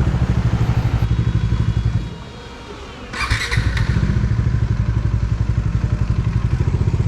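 Bajaj Dominar 400's single-cylinder engine idling with a steady, even pulse. It drops away about two seconds in and comes back a second later with a short burst of noise.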